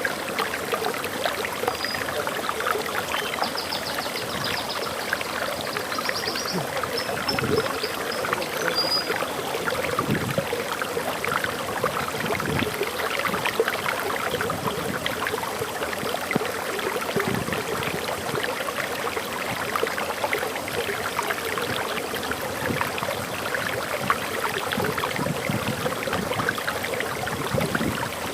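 Waterfall flowing steadily, a dense, even rush of water. A small bird gives short high chirps for a few seconds in the first third.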